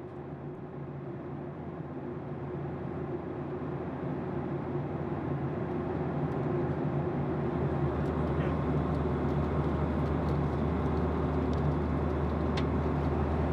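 Steady cabin drone of a Boeing 737-800 in cruise: engine and airflow noise heard inside the cabin at a window seat, with a low steady hum underneath, growing gradually louder.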